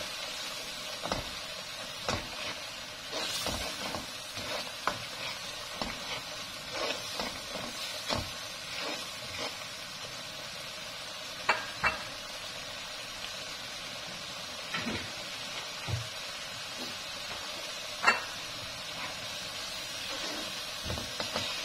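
Instant noodles sizzling in a thick sauce in a speckled nonstick pan while a spatula stirs them. The spatula scrapes and knocks irregularly against the pan, with the sharpest knock near the end.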